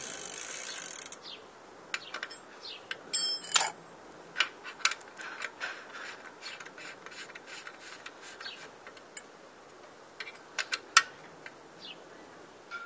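Scattered sharp metallic clicks and ticks as a bicycle pedal is fitted and threaded back onto the crank arm, bunched a few seconds in and again near the end.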